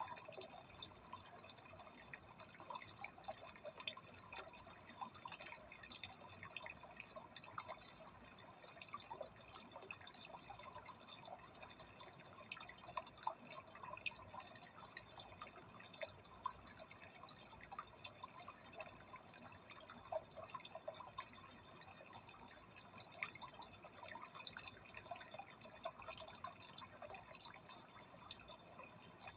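Faint aquarium water trickling: a steady, irregular patter of small drips and splashes.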